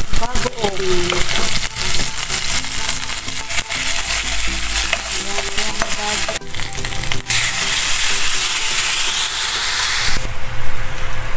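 Garlic, onion and tomato sizzling in hot oil in a wok, with a spatula stirring and scraping the pan. About seven seconds in the sizzle turns into a much louder, brighter hiss as a liquid goes into the hot pan, then it drops off abruptly near the end.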